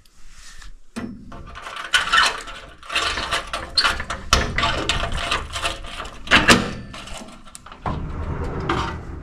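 Rustling, fumbling and scattered knocks and clicks as a door is opened to step outside, with one sharp knock about six and a half seconds in.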